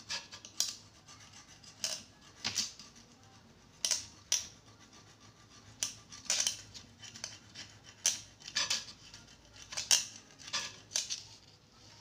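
A thin pointed tool scraped along the teeth of a flat steel file, clearing solder filings stuck in its grooves. About a dozen short, irregular scratches.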